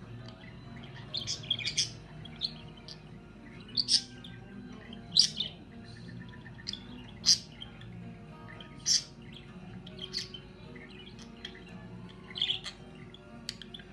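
Budgerigar chirps: short, sharp calls every second or two, irregularly spaced, over faint steady background music.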